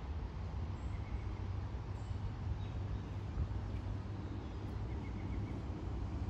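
Woodland ambience: a steady low rumble, with faint short bird chirps about a second in and again near five seconds.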